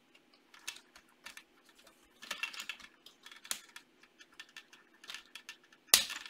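Plastic LEGO pieces clicking and rattling as they are handled and fitted onto the Mindstorms robot. The clicks are small and irregular, with a busier patch a little past two seconds in and one sharper, louder click near the end.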